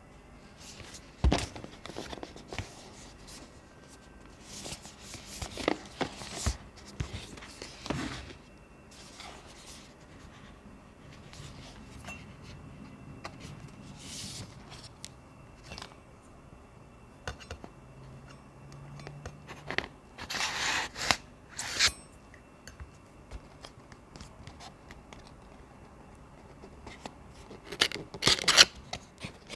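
Packaging being handled and opened: scattered scrapes, rustles and tearing sounds of cardboard and plastic wrap, in separate bursts, with a sharp knock about a second in.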